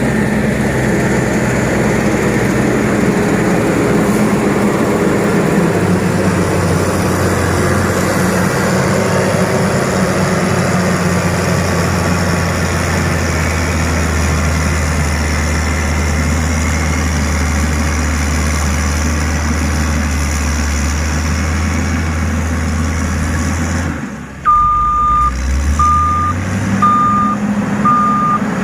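Heavy diesel road-construction machine running steadily with a deep hum. Near the end the sound breaks off sharply, the engine rises in pitch, and a reversing alarm starts beeping about once a second as the machine backs up.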